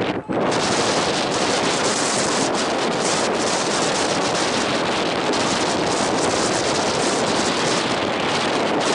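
Wind buffeting the camera's microphone: a loud, steady rushing noise, briefly dropping out just after the start.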